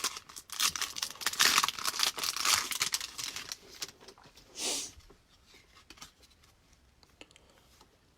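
A foil trading-card pack wrapper being torn open and crinkled: a dense, crackly tearing for about three and a half seconds, then one short swish a little over a second later.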